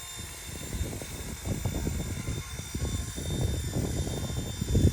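RC Era C189 MD500 remote-control helicopter in flight, its electric rotor motor giving a steady high whine. Wind buffets the microphone in gusts throughout, growing stronger near the end.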